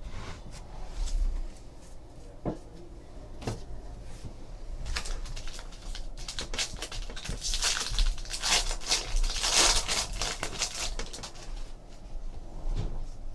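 Trading cards and foil pack wrappers being handled: scattered light clicks and slides, with a longer crinkling rustle from about seven to ten seconds in.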